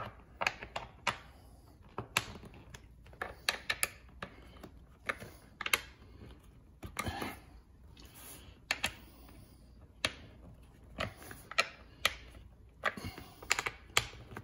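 Allen wrench clicking and scraping against an office chair's armrest bolts as they are given a final hand tightening, with knocks from the chair's plastic armrest frame being handled. Irregular sharp clicks, some in quick runs of three or four.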